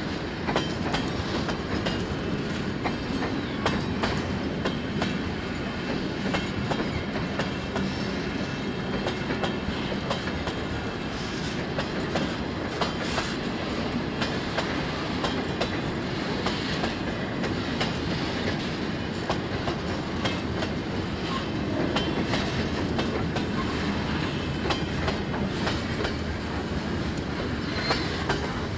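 Freight train of covered hopper cars and boxcars rolling past close by: steel wheels clacking over the rail joints in an uneven stream of knocks over a steady rumble.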